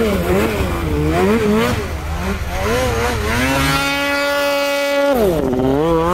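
Snowmobile engine revving up and down in quick throttle blips, then held at steady high revs for about a second and a half before dropping and climbing again near the end.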